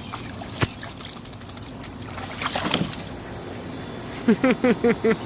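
Water splashing and sloshing, then about four seconds in a quick run of short, high yaps from a small dog.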